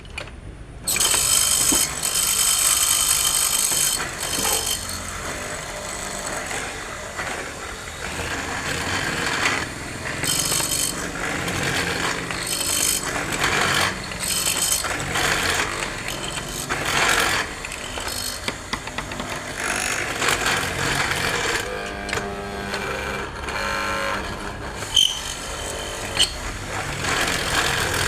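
Power tool cutting a mortise into a wooden door-frame post. It starts about a second in and keeps running, its sound rising and falling as it bites into the wood.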